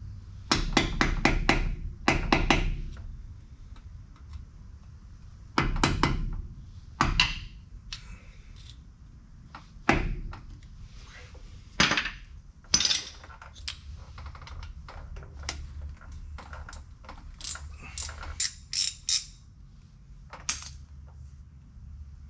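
Hand tools clinking and knocking on the steel driveline of a dump truck while its U-joint bolts are worked loose: a quick run of metal knocks in the first few seconds, then scattered clanks and clicks.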